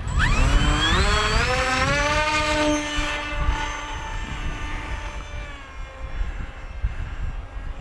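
Sunnysky 2212 980kv brushless motor spinning a 9x6 pusher propeller, whining up in pitch as it throttles up for a hand launch, then holding steady and fading as the plane climbs away. Wind rumbles on the microphone throughout.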